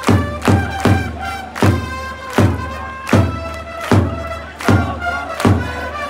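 Baseball cheering-band trumpets playing a melody over big drum strokes, a beat roughly every three-quarters of a second.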